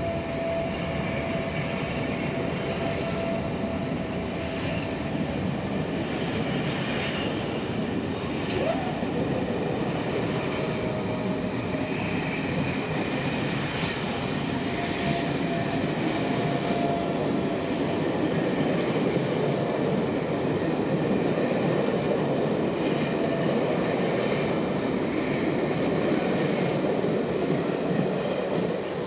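Locomotive-hauled passenger coaches running past at speed: a steady rumble of steel wheels on rail with a light clickety-clack, and a faint steady whine through the first half. The sound drops away as the last coach clears, at the very end.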